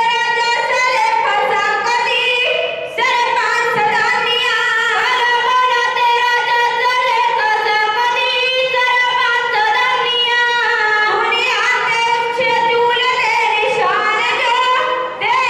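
Sikh devotional hymn singing (kirtan): a voice sings a melody over a steady held drone note.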